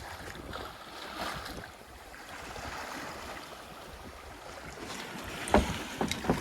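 Water rushing along a sailboat's hull under sail with wind noise, in winds gusting to about 19 knots. A few sharp knocks near the end, the loudest about five and a half seconds in.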